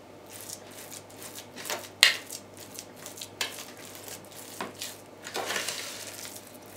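Spoon scraping and knocking against an orange plastic bowl while mashing crumbly curd cheese into a smooth mass, in irregular strokes. A sharp knock about two seconds in is the loudest, and a longer run of scraping comes near the end.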